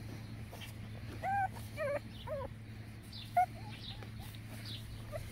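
Boston terrier puppies whimpering: about five short, high, arching whines between one and three and a half seconds in, with a few fainter ones after. A steady low hum runs underneath.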